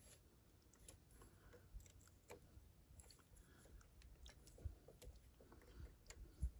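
Near silence with faint, scattered small clicks and taps of metal parts being handled at a tractor's axle hub, a hex key turning in the housing near the end.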